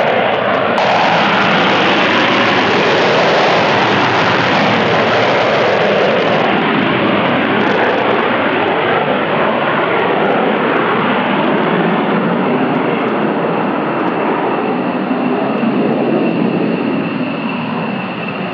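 Dassault Rafale M jet at take-off power: the loud, steady roar of its two M88 turbofans, with a faint high whine in the second half, fading out near the end.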